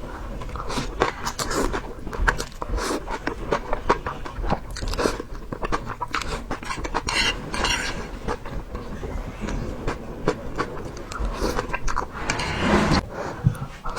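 A person chewing and biting food up close, with irregular sharp crunching clicks and occasional clinks of utensils on dishes.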